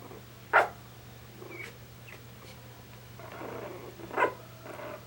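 Three-week-old Coton de Tulear puppies squealing and grumbling as they tussle, with two short sharp yelps, one about half a second in and one near the end.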